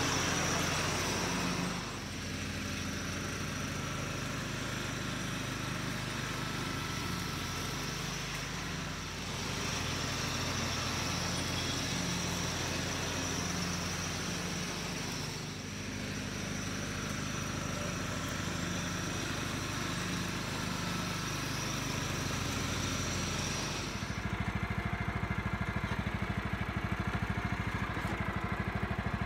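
John Deere Sabre ride-on mower running as it drives around the lawn, its engine note steady, with the level dipping slightly now and then as it moves. The mower is on a test run after its hydrostatic transmission fluid change and new drive belt. About 24 s in, the sound changes to a closer, pulsing engine note heard right beside the mower.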